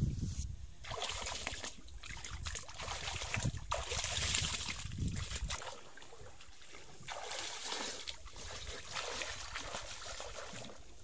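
River water splashing and sloshing in irregular bursts as a person wades and swims chest-deep through it.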